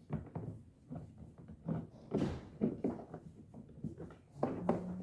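Plastic shell parts of a toy frog being handled and pushed together: scattered clicks and knocks as a piece that won't seat properly is tried.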